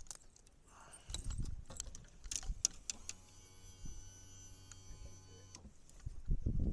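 Fishing lure and hooks clicking and rattling as the hook is worked out of a bass's mouth. Then a small electric motor hums steadily for a couple of seconds and stops.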